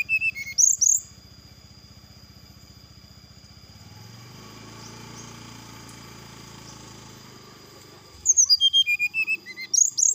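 Brown-chested jungle flycatcher singing: quick runs of loud, clear whistled notes stepping down in pitch, about a second long, once at the start and again about eight seconds in. Between the phrases a faint, steady high-pitched tone carries on.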